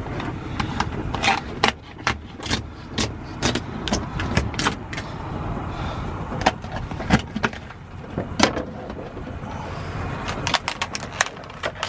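Spiny lobster shell cracking and snapping as gloved hands twist and split it open: a run of sharp, irregular clicks over steady low background noise.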